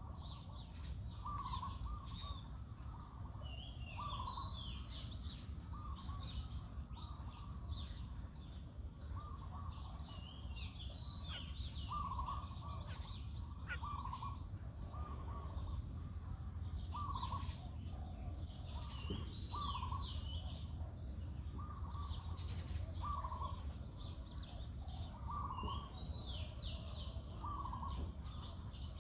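Several birds calling: one repeats a short call about every one to two seconds while others chirp and trill higher, over a steady low rumble.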